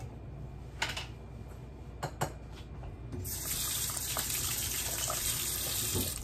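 A few light knocks, then a kitchen tap running steadily for about three seconds before it cuts off sharply.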